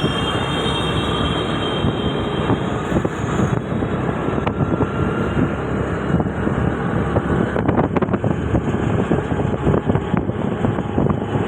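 Passenger train running along the track: a steady rumble of wheels and carriage, with wind on the microphone and a few sharp clicks about eight seconds in.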